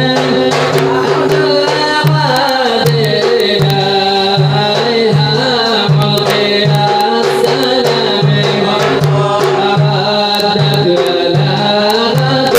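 Arabic devotional nasheed: a male voice singing over a steady low hand-drum beat, about one stroke every 0.7 seconds.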